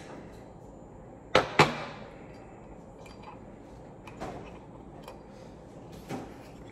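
Two sharp metallic clicks a fraction of a second apart, about a second and a half in, from a Glock pistol slide and its sight parts being handled. A few faint light taps follow.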